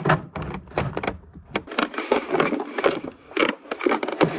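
Rapid clicks, knocks and scraping of hand tools and plastic interior trim panels being handled and worked loose.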